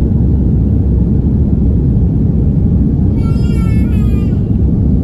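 Steady, loud low rumble inside an airliner cabin during the climb after takeoff, the mix of jet engine and airflow noise. About three seconds in, a brief high-pitched sound lasting just over a second falls slightly in pitch.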